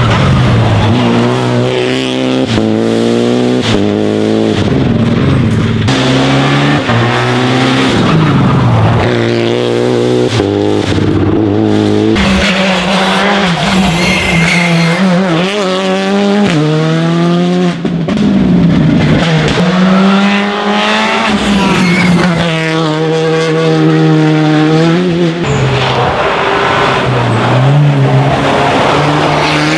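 Rally car engine driven hard: its note climbs and falls again and again, with sudden steps as it changes gear and lifts.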